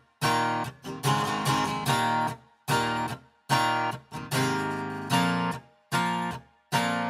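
Background music: acoustic guitar strumming chords, one chord struck about every second and left to ring briefly before the next.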